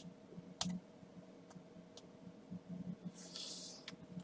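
A few separate sharp clicks at a computer desk, spaced irregularly, over a faint steady hum. About three seconds in there is a short soft rustle.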